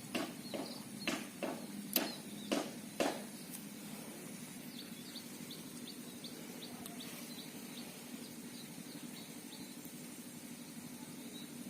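Sharp clicks, about two a second, for the first three seconds. Then a faint series of short high chirps, about three a second, over a steady low background hum.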